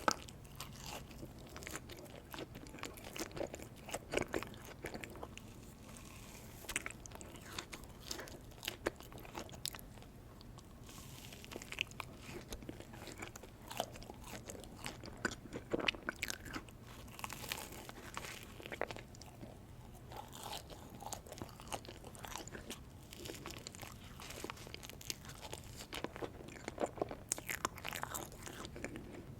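Close-up sounds of a person eating ice cream: irregular bites and chewing with many sharp crackling clicks.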